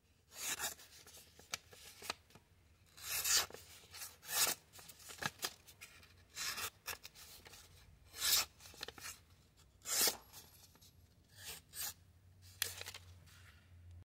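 Boker Arbolito Héroe knife blade slicing through a sheet of paper in about a dozen short, irregularly spaced strokes, each a quick hiss of cut paper: a paper-slicing test of the edge.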